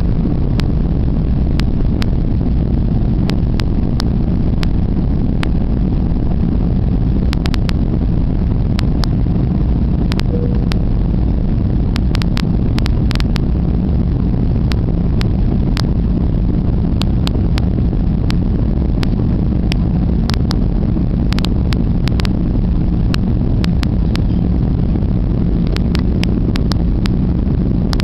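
Airbus A330 jet engines and rushing air heard inside the cabin during the climb after takeoff: a loud, steady low rumble, with scattered sharp clicks.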